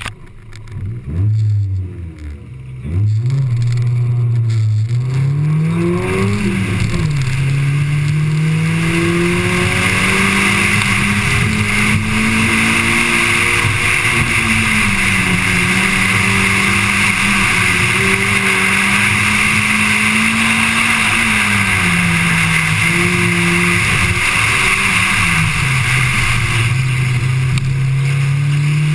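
Car engine blipped a few times, then driven hard from about three seconds in, its note rising and falling with throttle and gearshifts. A steady higher hiss joins it from about a third of the way in.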